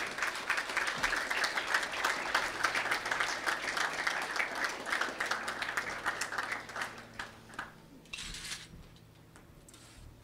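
Audience clapping, a dense patter of many hands that thins out and fades away about seven to eight seconds in.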